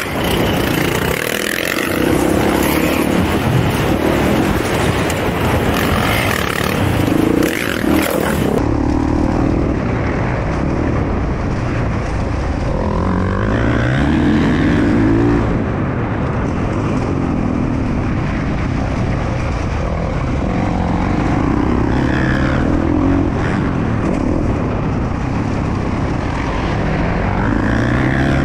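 Motocross dirt bike engine heard from on board, revving up and dropping back again and again as the rider accelerates and shifts gears. The sound turns duller about eight seconds in.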